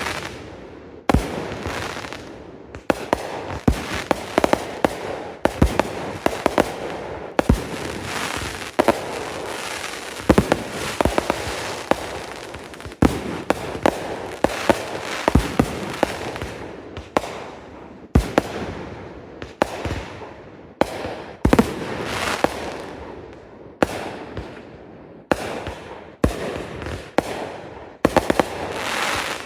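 Consumer fireworks going off in rapid succession: many sharp bangs of aerial bursts, one every second or less, over a continuous crackling and hissing.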